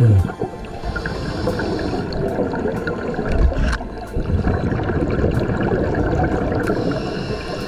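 Underwater bubbling and gurgling from scuba divers' exhaled air, with a faint hiss twice, about a second in and near the end.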